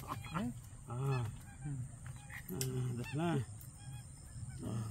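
Geese honking: a string of short, repeated honks with pauses between them.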